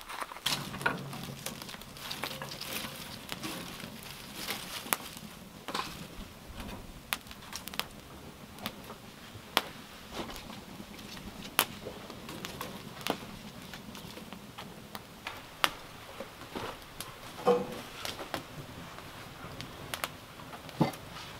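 Dry twig kindling burning in a grill firebox, crackling with irregular sharp snaps and pops over a steady low hiss.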